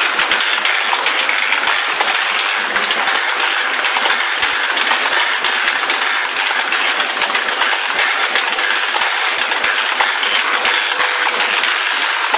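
Motor-driven drum switches of a thorana lighting controller running: rows of metal contact fingers click and scrape over the turning drums in a steady, dense metallic clatter.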